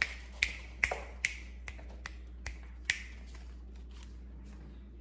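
Fingers snapping in a quick, even rhythm, about two or three sharp snaps a second, to hurry someone along. The snapping stops about three seconds in.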